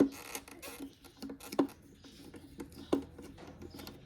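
A few sharp plastic clicks and knocks from handling taillight parts by hand, spaced irregularly about a second apart.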